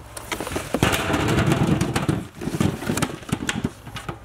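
Pomegranates poured from cardboard boxes into a large metal tray, tumbling and knocking against the metal and each other in a dense run of thuds for about three seconds. It thins out near the end into a few last separate knocks.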